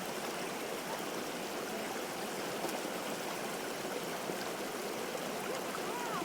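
Small mountain stream running and babbling over rocks, a steady rushing of water.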